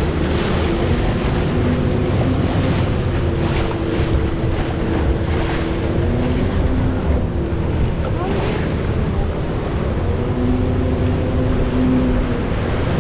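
Steady roar of the Rhine Falls' churning water, with wind buffeting the microphone.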